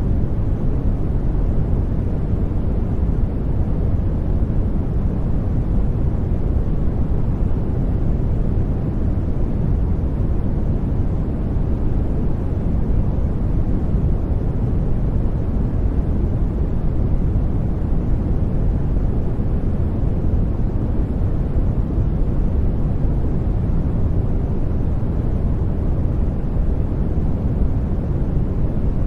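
Steady, unchanging sleep noise of the kind sold as white noise, deep-toned rather than hissy.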